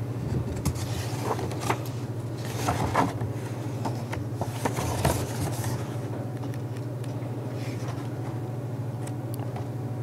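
Steady low hum through the lectern's sound system, with scattered soft clicks and rustles of handling at the lectern during the first half.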